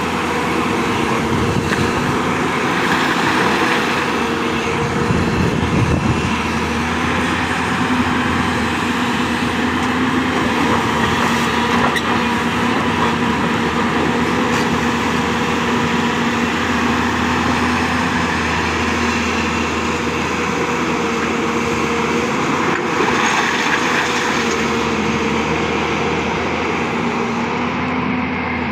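Hyundai 220-9S excavator's diesel engine running steadily at a constant pitch while it works, growing fuller and louder a few seconds in and again near the end.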